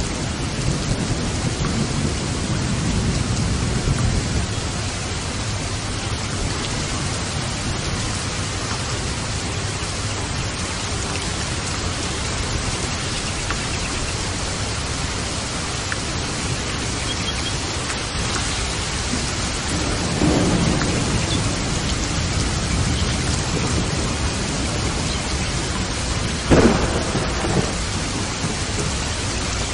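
Steady heavy rain with thunder: low rumbles in the first few seconds and again about two-thirds of the way through, and a sharper thunderclap near the end.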